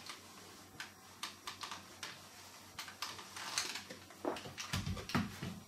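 A household clothes iron pushed and pressed over a paper towel on a cardboard backing card, with irregular clicks and rustles as the card and its plastic blister are handled, and a few dull knocks near the end.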